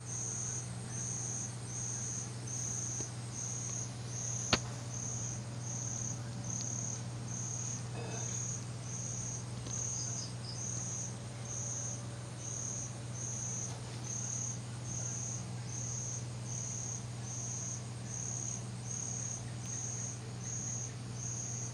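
A cricket chirping steadily at night, short high-pitched chirps a little more than one a second, over a steady low hum. A single sharp click about four and a half seconds in.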